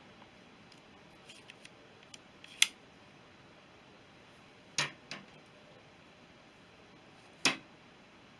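Metal clutch parts of a BSA B31 being fitted by hand: a few light ticks, then three sharp clicks a couple of seconds apart, the first the loudest.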